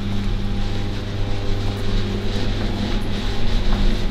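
A steady low mechanical hum, getting slightly louder near the end.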